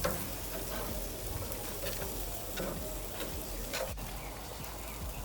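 Chicken sizzling steadily on a barbecue grill, with a few sharp clicks as the pieces are slid across the grate.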